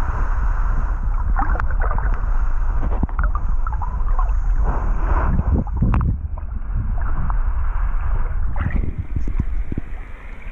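Muffled, deep underwater rumble of river water heard by a submerged camera, with scattered clicks and scrapes of sand and grit as a neodymium magnet on a rope is dragged across the sandy riverbed. It gets quieter near the end as the camera comes up to the surface.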